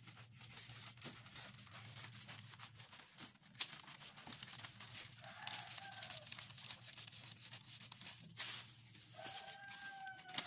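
Scissors snipping through a paper sewing pattern, with repeated short cuts and the sheet rustling as it is handled. Two faint calls in the background, the second near the end.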